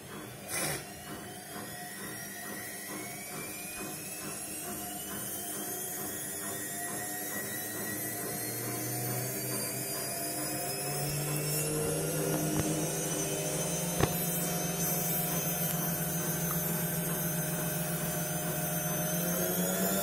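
Front-loading washing machine's motor whining and rising steadily in pitch and loudness as the drum speeds up, with a faint regular beat from the turning drum in the first half and a single click about two-thirds of the way through.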